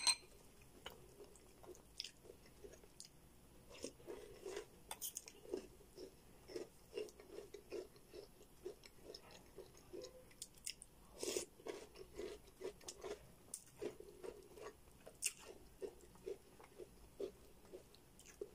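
A person chewing soft food eaten from a bowl with a metal spoon: a steady run of soft chews, about two a second, with a few sharper clicks of the spoon against the ceramic bowl.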